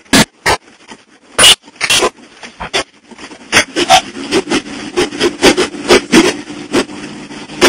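Irregular sharp knocks and rattles as a truck's cab jolts over a rough dirt track. A steady engine drone comes in underneath about three and a half seconds in.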